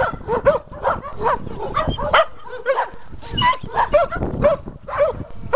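Several dogs barking repeatedly, the barks coming fast and overlapping at a few a second.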